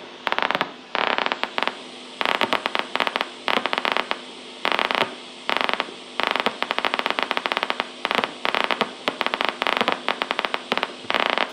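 Audio recording of a single neuron's electrical activity played through a small portable speaker: a crackle of rapid pops, each pop one action potential as the neuron fires, coming in irregular clusters over a steady hiss.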